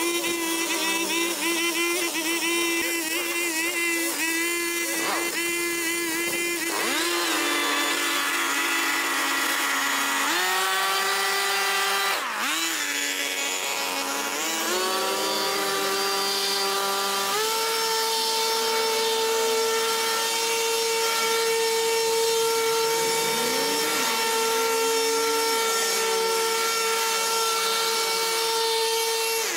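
Petrol brush cutter running at high revs while cutting dense overgrown grass. Its pitch sags and recovers several times under load, with a sharp dip about twelve seconds in, then holds steady at a higher pitch for the rest.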